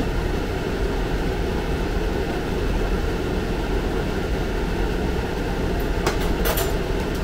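Steady whirring rumble of a fan running. About six seconds in come a few light clicks as tongs knock against the plate and the air-fryer tray.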